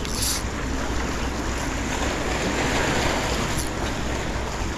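Wind rumbling on the microphone over the sound of the sea washing against the shore, steady throughout.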